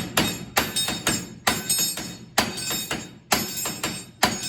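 Hammer blows on a steel part of an IH 1066 tractor, struck at a steady pace of about two a second, each with a short metallic ring. It is the part being knocked loose, with the nut left part-way on the threads.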